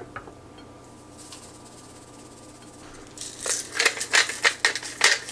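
Hand-twisted pepper mill grinding pepper over a rack of venison ribs: a quick run of short rasps, several a second, starting about three seconds in.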